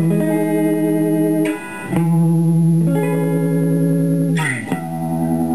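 Electric guitar chords from a 1982 Fender Stratocaster on its middle single-coil pickup, played through an analog Danelectro Cool Cat Vibe pedal set fully wet at top speed into a silverface Fender Princeton Reverb amp. Several ringing chords, changing every second or two, with a slide between chords near the end.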